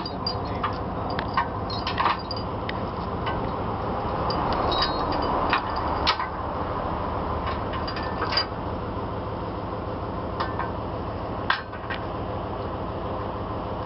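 A heavy vehicle running steadily, with irregular sharp rattles and knocks over the steady noise.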